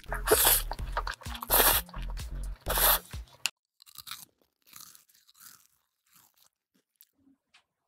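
Close crunchy eating sounds, three loud crunches in the first three seconds, over background music with a deep bass line. Both stop about three and a half seconds in, leaving only faint scattered small sounds.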